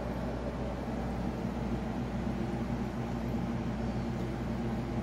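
Aquarium equipment, the filter pump and air bubbler, running with a steady low hum and an even hiss.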